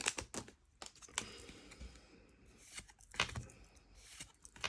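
Faint clicks and light rustling of a stack of Pokémon trading cards being handled and slid apart one by one, a few soft ticks spaced about a second apart.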